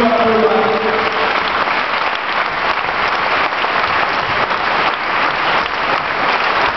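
Audience applauding steadily. A single voice holds one long call over the clapping and stops about a second in.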